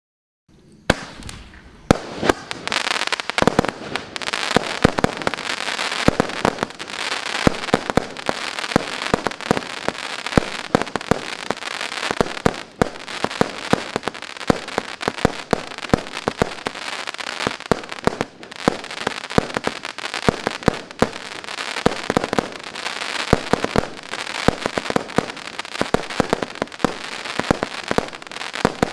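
A 200-shot, 0.8-inch consumer firework cake firing in rapid succession, starting about a second in. It makes a dense, unbroken stream of sharp reports over a constant noisy hiss.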